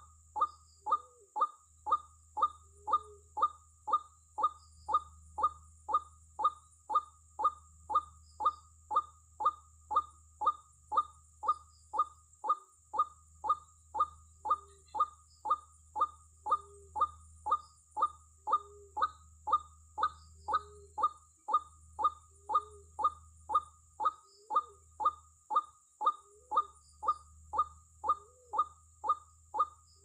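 White-breasted waterhen lure call: the same short note repeated very evenly, about three times every two seconds, with a softer lower note every couple of seconds and a low hum underneath.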